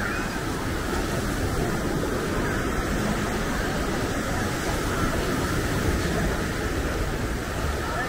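Steady outdoor noise of a seafront: the wash of surf blended with passing street traffic and faint voices, holding at an even level throughout.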